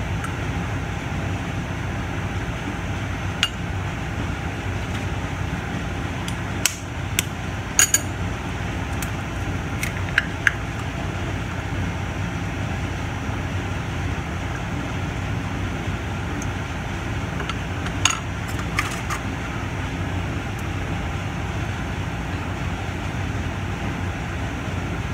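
Scattered sharp taps and clinks of eggshells, a plastic egg separator and a fork against ceramic bowls as egg yolks are separated, in small clusters, over a steady background hum.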